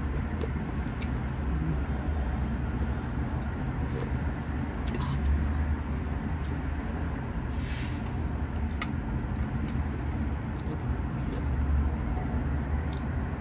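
Sounds of a person eating by hand: scattered small clicks and a brief breathy sound a little past the middle, over a steady low hum.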